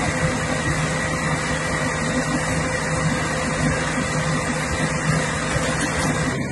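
Fire truck's engine running steadily to drive its water pump, a constant hum over a steady rushing noise.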